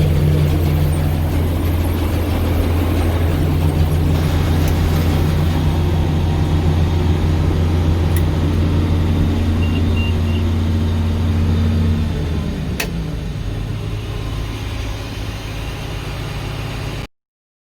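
Large farm machine engine running steadily under load, then settling to a lower, quieter note about twelve seconds in before the sound cuts off abruptly.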